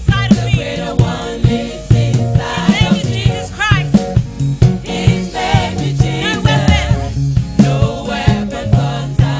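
Gospel praise music: voices singing together over a steady beat and a low bass line moving in steps.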